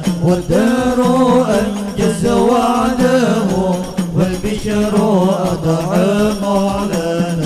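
Sholawat singing: a voice chanting Arabic devotional verses in a long, wavering melodic line, with music behind it.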